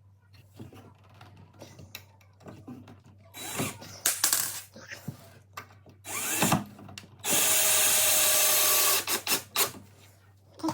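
Power drill-driver driving a screw into a door hinge: two short bursts, then a steady run of about two seconds, with small handling clicks and knocks around it.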